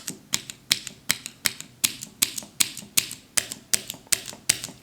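Cherry MX mechanical keyboard switches on a small tester board being pressed one after another at an even pace, about three presses a second. Each press gives a sharp click followed by a softer clack.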